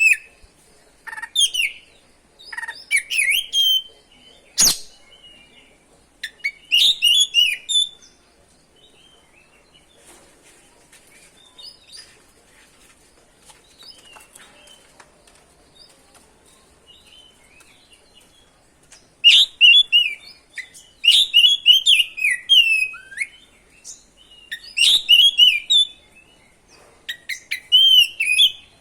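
Oriental magpie-robin singing in bursts of rapid, varied whistled phrases. There is a lull of about ten seconds in the middle, then a long dense run of song. A single sharp click about five seconds in.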